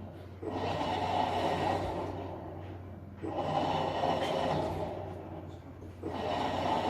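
Hitachi SF-BW10JV washer-dryer running with an abnormal noise. A rushing sound starts suddenly about every three seconds, dies away, then starts again, over a steady low hum.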